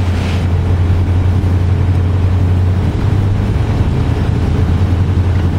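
Steady low drone of a car's engine and tyres heard from inside the moving car's cabin, dipping briefly about three seconds in.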